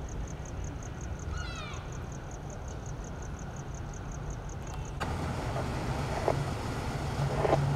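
Road traffic on a wide street: a steady low rumble of cars, with a faint rapid ticking at about four a second and a brief squeaky chirp about a second and a half in. Partway through, the sound changes abruptly to a louder, fuller traffic noise with a couple of short knocks.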